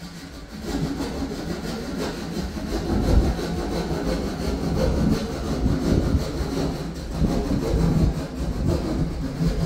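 Sawing into the ceiling to cut the opening for an exhaust fan: a continuous rough rasping that starts about half a second in.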